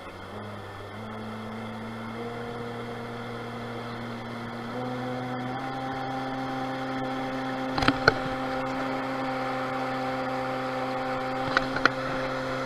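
Electric jet kayak's motor-driven water-jet pump running under way, a steady whining hum that steps up in pitch a few times in the first five seconds as the throttle is opened, then holds. A few short clicks come about eight and twelve seconds in.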